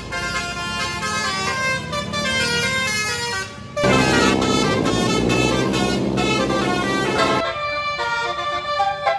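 Tour bus's Basuri telolet horn playing a quick stepping melody of several tones, then a louder, fuller blast of many tones held for about three and a half seconds, then back to short melodic notes near the end.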